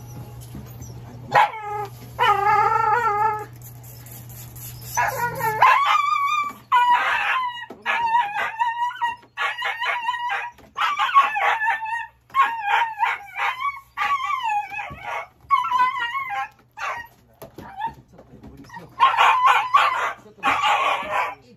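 Japanese-breed dog crying out in a long string of high-pitched, wavering yelps and howls, one after another, in distress at being held and handled on the exam table.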